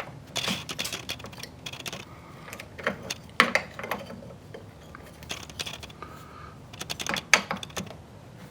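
Scattered light clicks and taps of car door handle parts being handled and slotted back into the door, with two sharper clicks about three and a half and seven seconds in.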